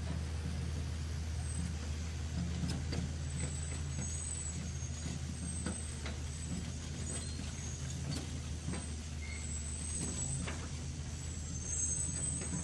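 Radio-controlled toy excavator working as it digs sand and lifts its bucket: a steady low hum with short high-pitched motor whines that come and go as the arm moves, and small scattered clicks.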